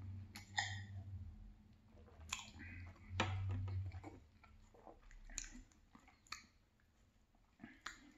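Close-up mouth sounds of a man drinking chocolate milk and eating: swallows, then a handful of short, wet smacks and clicks spaced about a second apart.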